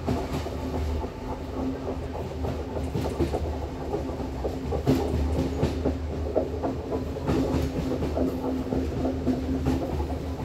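Passenger train running along the line: a steady low rumble and hum, with irregular clacks of the wheels over rail joints.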